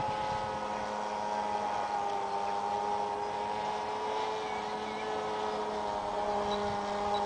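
Thunder Tiger T2000 RC model plane's engine droning in flight, a steady whine whose pitch drops about two seconds in. Wind buffets the microphone at the start, and a row of faint high beeps begins near the end.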